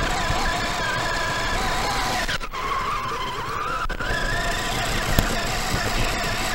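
Whine of an electric RC buggy's motor and drivetrain while it drives on its own. The pitch sinks about two and a half seconds in as the buggy slows, then rises again as it picks up speed. A single click comes near the end.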